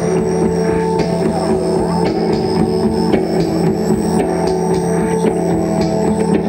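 Live rock band playing a loud, dense guitar drone: sustained guitar tones layered into a steady wall of sound with no breaks.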